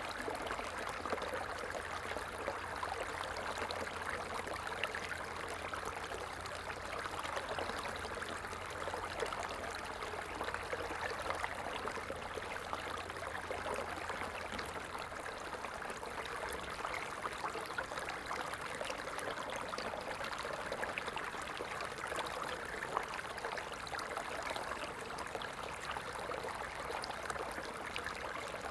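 A stream of water running steadily, a continuous trickling and splashing flow with small drips ticking through it.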